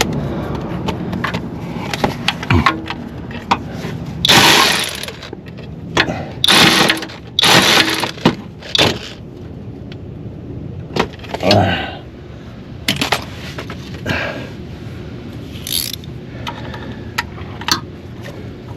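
Hand-tool work under a car during a starter replacement: scattered metal clicks and clinks with several short rasping bursts, the loudest cluster between about four and nine seconds in.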